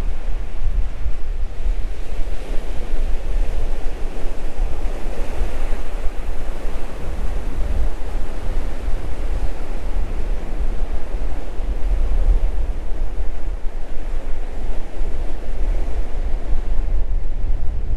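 Waves washing in as surf, with gusty wind buffeting the microphone in a heavy low rumble over it.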